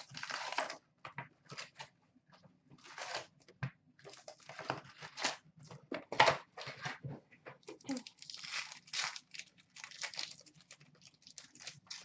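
Wrappers of 2016-17 Upper Deck SP Authentic hockey card packs being torn open and crinkled, with paper and cards rustling, in irregular bursts of tearing and crackling.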